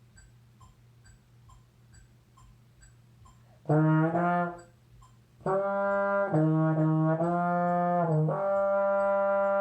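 Solo trombone: after a few seconds of quiet with faint, regular metronome-like ticks, it plays a short phrase, then a run of several notes, then a long held closing note near the end.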